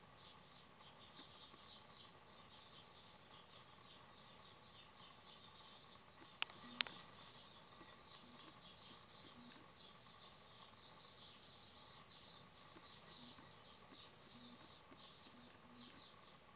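Nestlings of a small wren-type bird cheeping in their nest: a faint, continuous stream of many thin, high, quick chirps. Two sharp clicks about six and a half seconds in are the loudest sounds.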